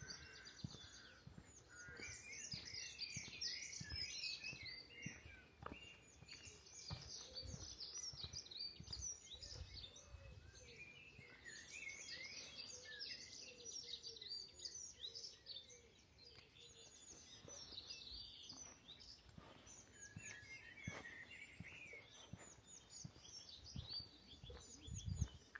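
Several small birds chirping and singing, many short, quick calls overlapping, with a quieter spell about halfway through. Under them, soft low thuds of footsteps recur.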